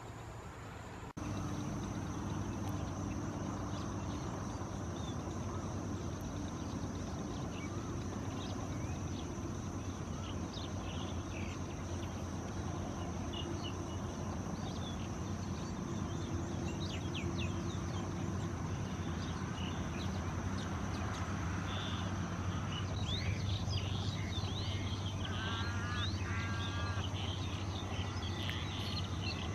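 Steady low motor-like hum with a thin, steady high whine over it. Small birds chirp in the background in the second half, with one short run of repeated notes near the end.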